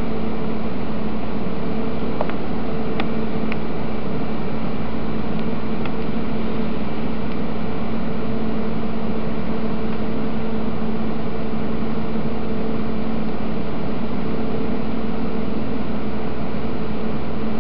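Steady machine hum over a constant hiss, with a few faint ticks in the first six seconds.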